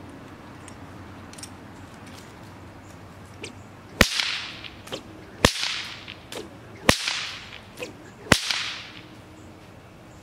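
A whip cracking four times, evenly about a second and a half apart. Each is a sharp crack with a short fading tail. The crack comes from a thin Dyneema-fibre popper on the end of the lash, made for use where loud booms are a problem.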